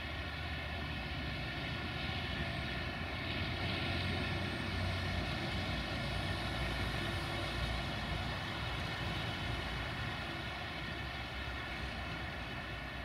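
Freight train of covered hopper wagons rolling away, with the steady, droning engine of its diesel locomotive; the drone swells a little around the middle and then eases.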